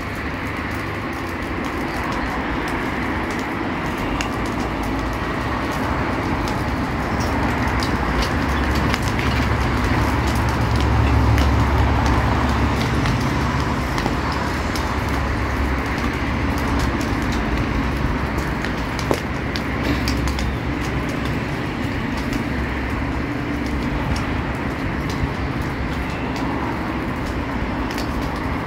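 Dry brush fire burning, with many small sharp crackles over a steady low rumble that swells around the middle.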